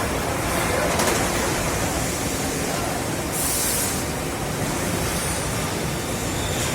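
Steady machinery noise on a chest freezer production line, with a short high hiss about three and a half seconds in.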